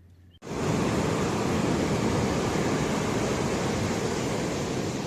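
Steady rushing noise of sea waves and wind, cutting in suddenly about half a second in after a faint low hum.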